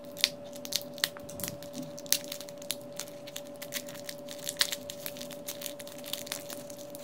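A small plastic wrapper being crinkled and torn open by hand, in many short, irregular crackles, over a faint steady hum.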